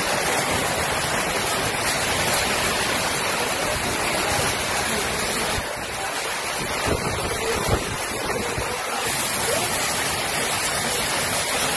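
Heavy rain driven by strong wind: a steady, dense rushing noise of a downpour and gusts. Two short knocks come a little past the middle.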